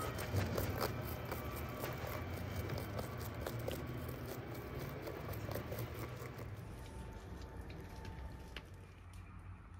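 Fingers scratching the dry florets off a ripe sunflower head: a dense run of small crackles and taps that thins out and dies away about seven seconds in, over a steady low rumble.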